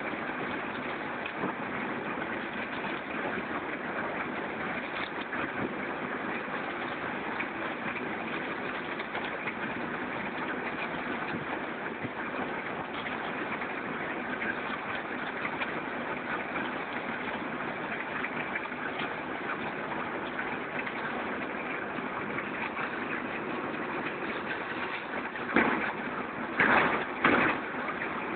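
Reversible concrete drum mixer running steadily, a continuous machine noise with no clear rhythm. Near the end there are three brief, louder bursts.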